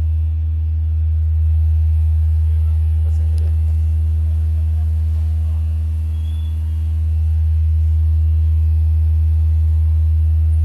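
A steady low sine test tone of about 79 Hz is played loud through PA speaker cabinets by a repaired MA3600 professional power amplifier, dipping slightly in loudness about six seconds in.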